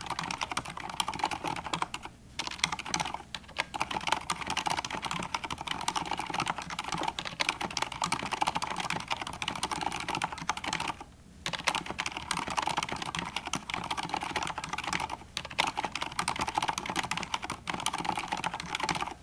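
Fast continuous typing on a Corsair K70 LUX mechanical keyboard with Cherry MX Silent Red switches: a dense run of key clicks with a few brief pauses, the longest about eleven seconds in, stopping at the end.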